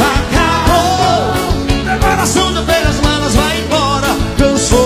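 Live band music with a male lead vocalist singing, over a steady beat with guitars.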